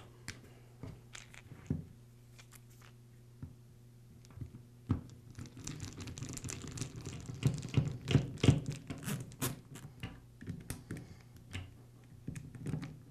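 Hand screwdriver turning screws into the plastic housing of a Dremel 395 Moto-Tool: scattered light clicks and scraping, sparse at first and busier from about halfway through.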